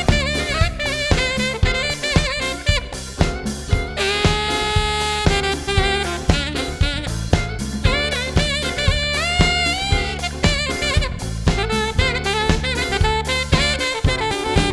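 Live band playing an instrumental funk passage: a lead melody over a steady drum-kit beat and bass line, with one long held note about four seconds in.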